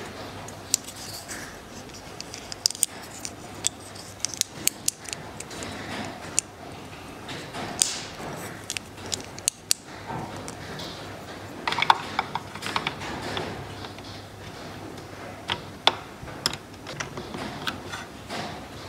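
Scattered light clicks and taps of small hard parts being handled, irregular rather than rhythmic, with a quick run of clicks about twelve seconds in.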